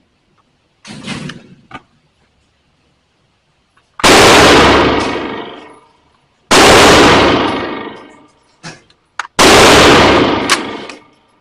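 Three single gunshots about two and a half to three seconds apart. Each is very loud and trails off in a long echo. A quieter clatter comes about a second in.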